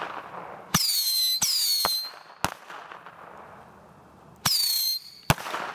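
Fireworks going off: three whistling shots, each a sharp pop followed by a whistle that drops in pitch and then holds steady, the first two close together about a second in and the third near the end. Separate sharp bangs follow, with a crackling tail.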